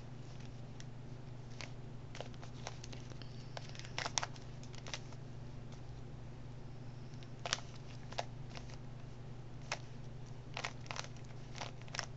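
Plastic Rubik's cube being twisted by hand, its layers turning with irregular clicks and clacks, sometimes two or three in quick succession, over a low steady hum.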